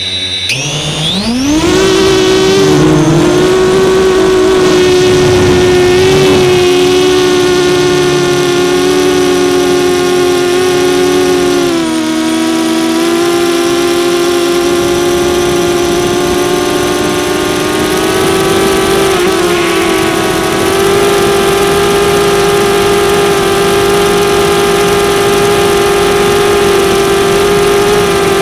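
DJI Phantom 2 quadcopter's four brushless motors and propellers spinning up for takeoff about half a second in: a whine that rises steeply in pitch, then settles into a steady, loud drone in flight. The pitch dips briefly about twelve seconds in as the throttle changes, heard close up from the camera mounted on the drone.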